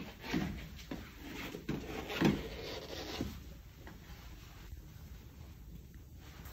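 Disinfectant wipe rubbed over the dental unit's surfaces, a rustling, rubbing sound with several louder scrapes in the first three seconds, then quieter.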